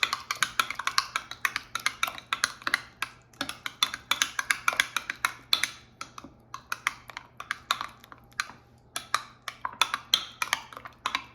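A utensil stirring thick sour cream and horseradish in a container, clicking and scraping against its sides several times a second, with a couple of short pauses.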